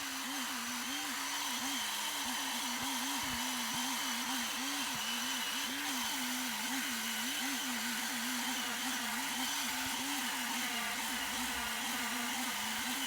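A woodworking power tool running steadily, its low hum wavering up and down in pitch a few times a second as it is worked against the wood, then cutting off suddenly at the end.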